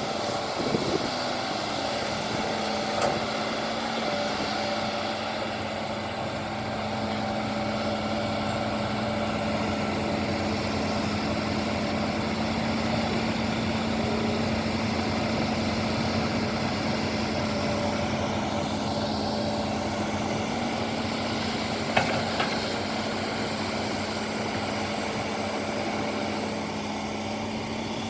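Excavator engine running steadily at a constant speed, with a few short knocks, the loudest about three-quarters of the way through.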